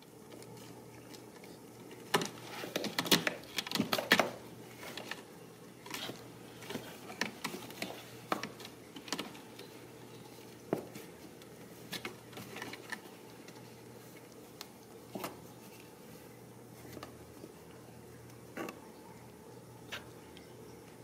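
A Ragdoll kitten's paws and claws scrabbling, tapping and scratching on a cardboard box and a sisal scratching post: a dense flurry of clicks and scratches about two to four seconds in, then scattered single taps and scrapes.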